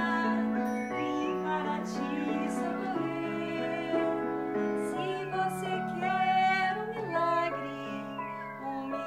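Music: a woman singing long held notes in an operatic style over instrumental accompaniment.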